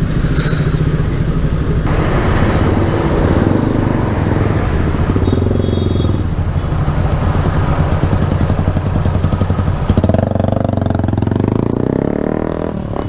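Suzuki Raider 150 single-cylinder four-stroke engine running steadily under way, through a Tsukigi exhaust pipe and the stock muffler, with the rush of wind and road noise. About ten seconds in the rush eases and the pitch glides.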